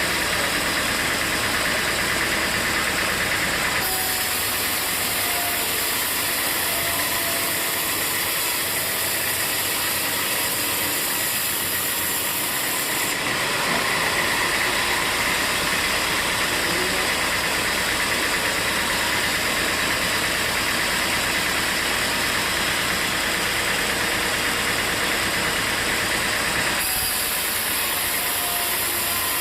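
Sawmill machinery running steadily: an engine and saw making continuous loud noise. The tone changes abruptly a few times.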